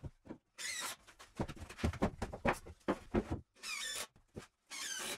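Cordless drill driving screws into timber in three short whirring bursts, with wooden knocks from the frame pieces being handled between them.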